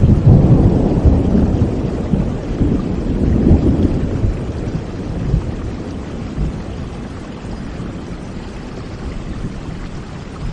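Rolling thunder over steady rain, the low rumble loudest at the start and slowly dying away.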